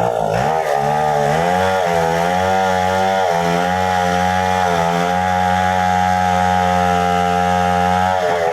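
Chainsaw running at full throttle while cutting into a tree, its pitch wavering over the first few seconds, then holding steady before dropping near the end.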